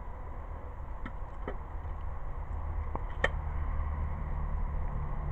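Low steady background rumble with a few faint, light clicks, the clearest about three seconds in.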